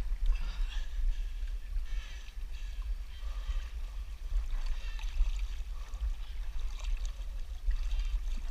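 Wind buffeting the microphone in a steady low rumble, with water rushing and splashing along the hull of a Hobie 14 catamaran under sail.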